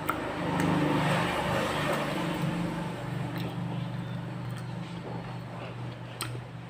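A motor vehicle engine running, louder over the first couple of seconds and then settling into a steady low hum, with a few faint clicks.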